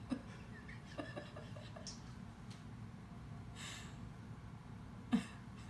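Quiet room with a dozing dog's soft nasal breath about three and a half seconds in, and a sharp click about five seconds in.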